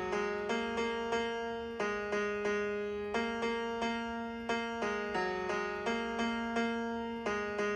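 Piano app on an iPad Pro played by touch: a simple melody of sampled piano notes in a middle register, about two to three notes a second, each struck and fading.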